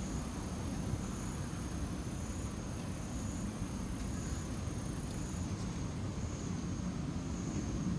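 Outdoor ambience: a steady low rumble with a faint high chirp that repeats about once a second.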